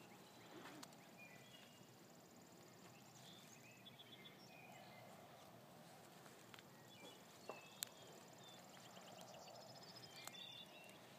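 Near silence: faint outdoor field ambience with scattered short, high chirps and a few light clicks.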